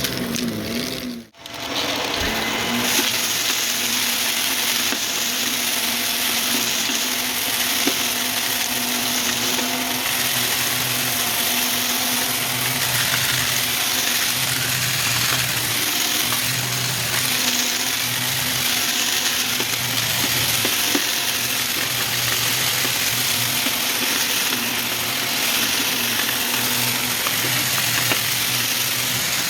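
Vacuum cleaner running with its brushroll spinning, pushed back and forth over the floor and crunching up debris; the motor's hum swells and fades with each stroke. The sound drops out for a moment about a second in.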